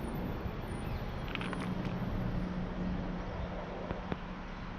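Street traffic noise: a steady rumble with a low engine hum running through the middle.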